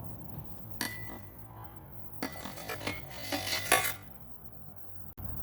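Small hard objects clinking: one sharp clink with a short ring about a second in, then a rapid clatter of clinks and rattles that ends with the loudest strike just before the four-second mark.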